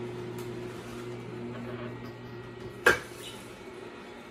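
Tribest Green Star Elite twin-gear juicer running with a steady low hum while greens are pressed into its feed chute. A single sharp knock comes about three seconds in.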